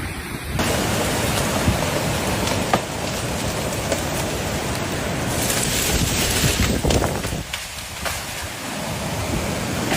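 Steady rush of floodwater and rain. The noise changes abruptly about half a second in and thins briefly near the end.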